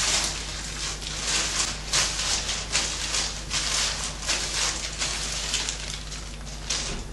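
Thin clear plastic gloves crinkling and rustling in irregular bursts as hands work hair dye through the hair.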